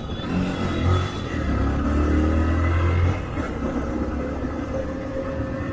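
Motorcycle engine running as the bike rides along, with a steady low rumble; the engine grows louder about one and a half seconds in and eases off again after about three seconds.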